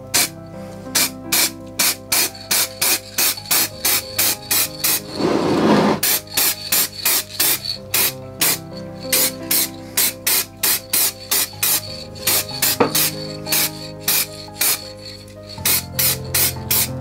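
Background music with a quick, even beat of about three strokes a second. About five seconds in, an aerosol can of matte lacquer hisses for about a second as it is sprayed.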